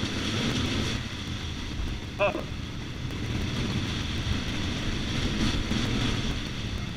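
Dirt bike engine running at low speed with tyres crunching over a rocky tunnel floor, a steady rumble. A brief rising squeal cuts in about two seconds in.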